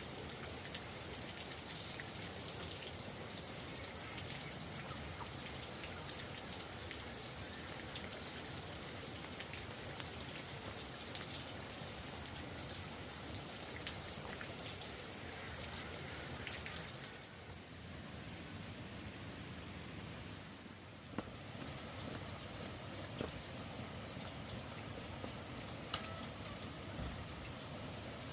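Steady rain falling, with scattered individual drops ticking on a surface. For a few seconds past the middle the rain drops away and a steady high-pitched tone is heard instead.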